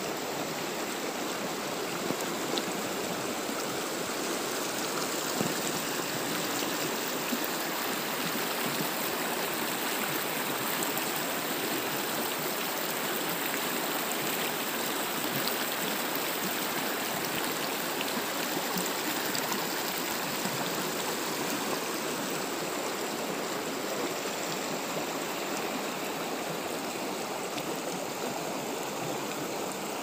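Shallow mountain stream rushing and splashing over rocks and pebbles: a steady, even rush of running water.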